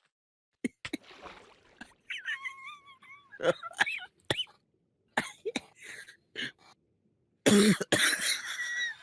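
A man wheezing with laughter: a run of sharp gasping breaths and cough-like catches with high squeaky wheezes, then a loud voiced outburst about seven and a half seconds in.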